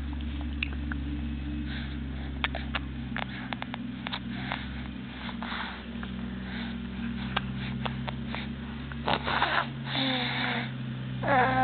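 Teeth grinding: a run of small, sharp clicks and scrapes, irregular and spread over several seconds, over a steady low hum. A breathy sniff comes about nine seconds in, and a brief high-pitched vocal sound near the end.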